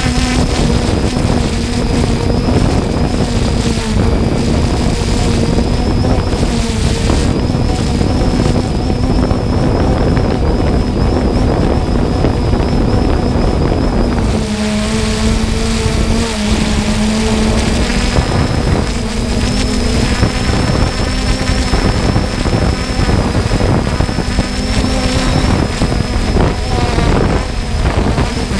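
Quadcopter drone's motors and propellers humming steadily, picked up by its own onboard camera, with wind rushing over the microphone. The pitch shifts slightly about halfway through.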